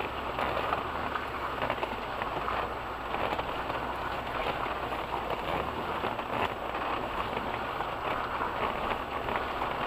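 A 4x4's tyres splashing and squelching through a waterlogged mud track, heard from inside the cabin: a steady patter of splashing and crackling over the low hum of the engine.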